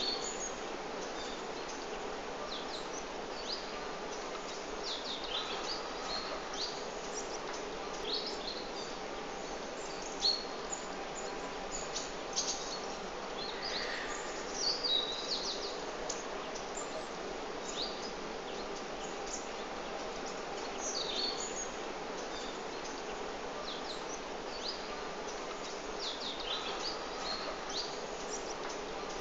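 Small birds chirping in short, high, scattered calls over a steady outdoor background hiss with a faint low hum.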